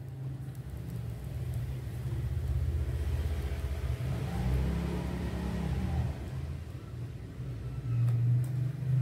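A motor engine running with a low rumble, its pitch rising and falling briefly in the middle.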